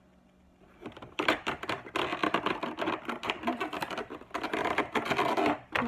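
Thin plastic packaging crinkling and crackling as it is pulled away by hand, a dense run of rapid small clicks starting about a second in.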